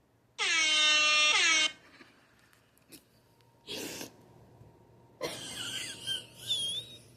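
Air horn blast: one loud, steady-pitched blast lasting just over a second, followed by fainter scattered noises.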